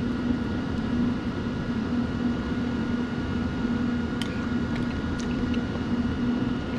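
Steady mechanical hum and fan noise of restaurant kitchen equipment, with a couple of faint short clicks a little past the middle.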